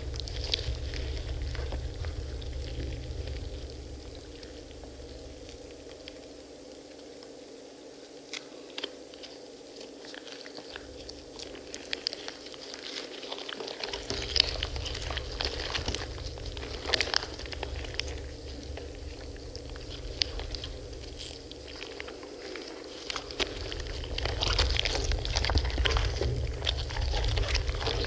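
Hands crushing and squeezing pomegranates: wet squelching with irregular crackles of seeds and rind breaking, busier near the end. A low rumble underneath drops away for several seconds in the middle, then returns.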